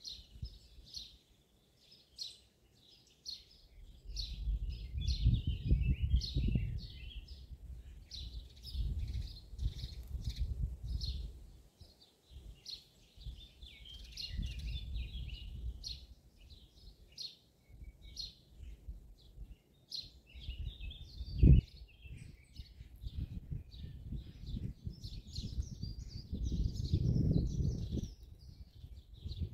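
Songbirds singing in a dawn chorus, with many short, high chirps and trills overlapping throughout. Under them a low rumble swells and fades several times, and there is a single sharp knock about two-thirds of the way through.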